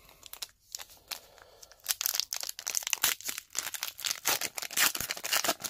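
Plastic wrapper of an O-Pee-Chee hockey card pack being torn open and crinkled by hand. A few scattered crinkles come first, then a dense run of crackling from about two seconds in.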